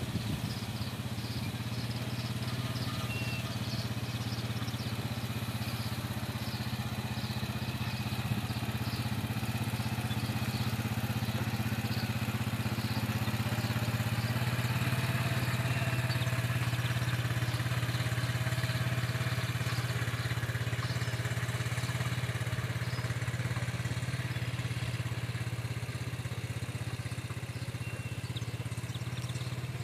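ATV engine running at a steady low speed while it tows a wheeled wooden deer stand across a field. It grows louder toward the middle as the ATV passes, then slowly fades as it moves away.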